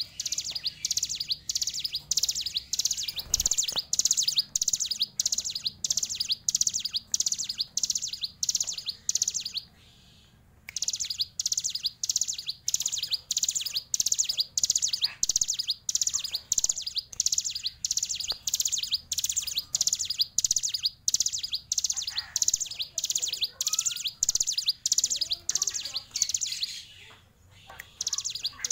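Caged hill prinia (ciblek gunung) singing its fast, continuous song: high, sharp trilled phrases repeated about two to three times a second, with a brief pause about ten seconds in and again near the end.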